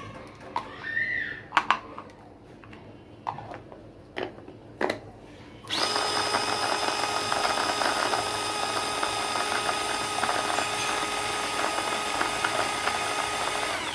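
A few scattered clicks and knocks, then an electric mini chopper switches on about six seconds in and runs steadily, mincing green chillies, until it cuts off at the end.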